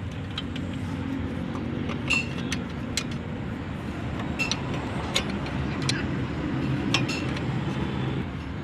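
Metal tools and parts clinking now and then as they are handled during truck axle repair work, over a steady low rumble.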